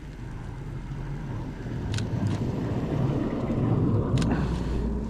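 A road vehicle passing: a low rumble that grows louder over a few seconds and eases off near the end. A few sharp clicks come about two seconds in and again just after four seconds.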